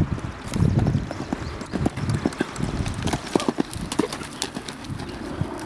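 Horse's hooves on sand arena footing: heavy thuds within the first second as it lands from a jump, then cantering hoofbeats as it passes close by.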